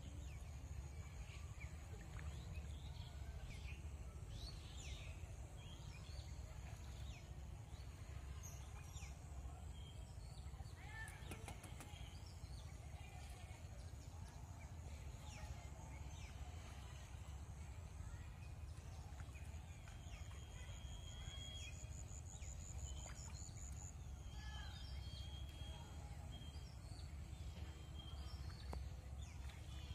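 Rural outdoor ambience: birds calling and chirping on and off over a steady low rumble, with a rapid high trill about two thirds of the way through.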